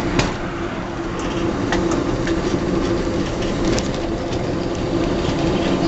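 Historic tram running along the track, heard from on board: a steady rumble of wheels on rail with a constant low hum and scattered clicks.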